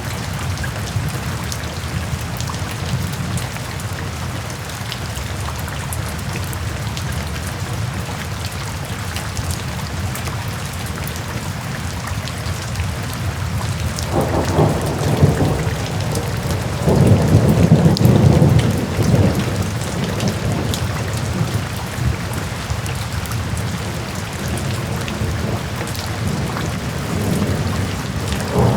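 Steady rain falling, with scattered sharp drop impacts, and two low rumbles of thunder swelling up about halfway through.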